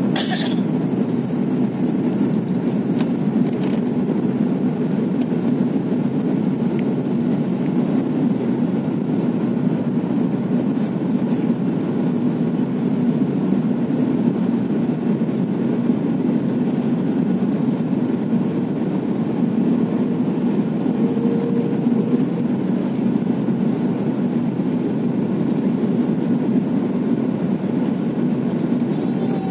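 Steady cabin drone of an Airbus A330-300 airliner on its landing approach: engine and airflow noise, even in level with no change in pitch.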